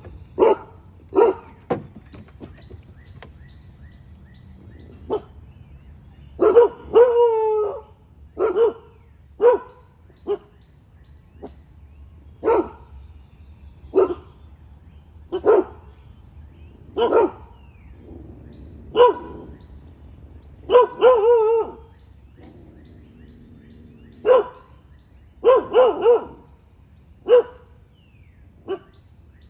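Young Cane Corso alert-barking repeatedly at people it has not recognised, single and paired barks every second or two with short pauses, a couple of them drawn out.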